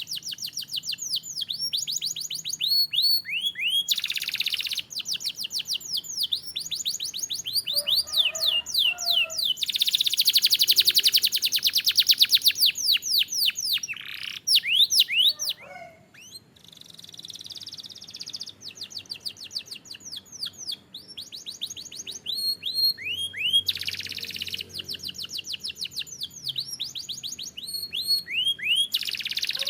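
A domestic canary singing a long song of rapid trills, each made of quick repeated chirps sweeping in pitch, with a short pause about halfway through.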